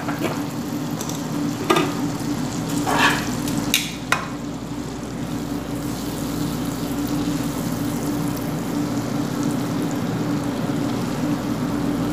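Butter sizzling as it melts and foams in a hot nonstick frying pan, over a steady low hum. A few light clicks in the first four seconds, as metal tongs knock against the pan.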